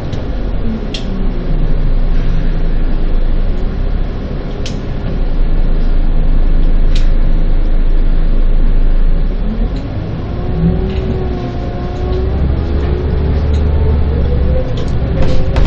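Bus engine and drivetrain running on the move, with a steady low drone. About ten seconds in, the pitch rises into a climbing whine as the bus accelerates. A few sharp clicks or rattles come through in the first half.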